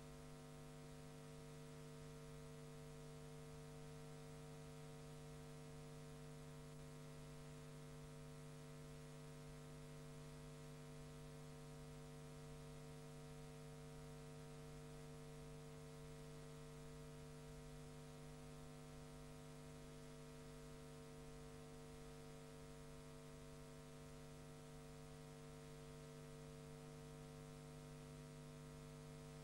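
Near silence: a faint, steady electrical hum with hiss, and no sound from the match itself.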